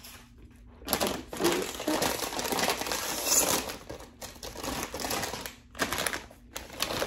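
A crinkly bag of Middlesworth sour cream and onion potato chips being pulled open and tipped, with chips spilling onto a wooden cutting board. The crackling rustle starts about a second in, stops briefly near the end, then starts again.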